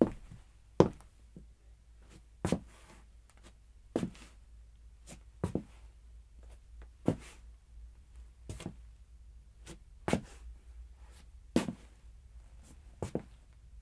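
Footsteps of a man in hard-soled shoes on a hard floor: sharp, separate steps, about one a second and unevenly spaced, some coming in quick pairs.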